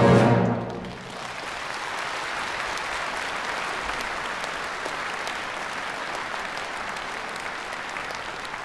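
Music dying away in the first second, followed by steady applause from a crowd, a dense patter of many hands clapping.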